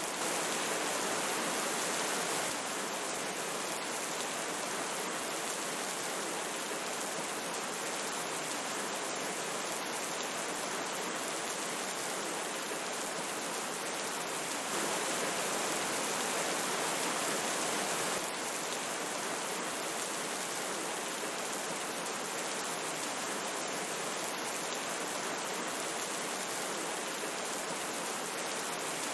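Steady rush of a flowing river mixed with falling rain: an even hiss with no distinct drops or splashes standing out. It swells slightly for a few seconds about halfway through.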